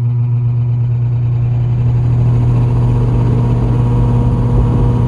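Lakewood-made Penney's 20-inch box fan starting up: a strong steady motor hum, with a rising rush of air as the four-rivet blades come up to speed behind the diffuser grille.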